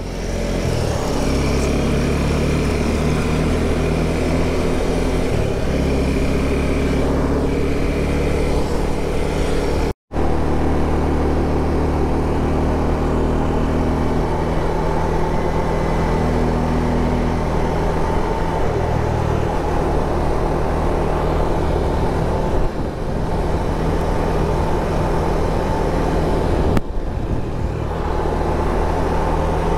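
Motorcycle engine running steadily while riding, under rushing wind noise. The engine note shifts a few times. The sound cuts out for an instant about ten seconds in.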